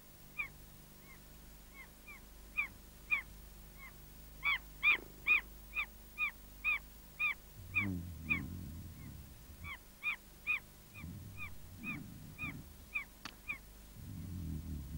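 A bird calling over and over: short, sharp, pitched calls at about two a second, stopping shortly before the end. Low muffled sounds come in under the calls from about halfway through.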